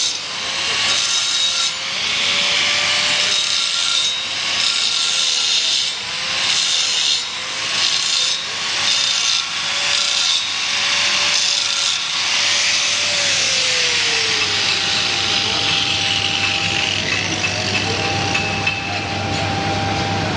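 Stick (shielded metal arc) welding on a steel pipe: the arc's steady crackling hiss, dipping briefly about once a second. A faint wavering hum runs underneath and slides down in pitch about two-thirds of the way through.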